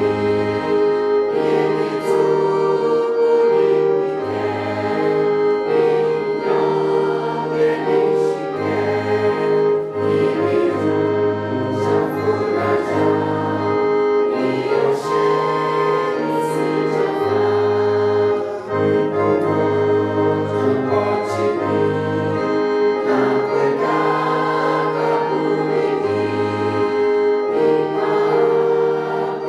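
Gospel church music: a choir singing over sustained keyboard chords, a bass line that changes every second or two, and regular percussion hits.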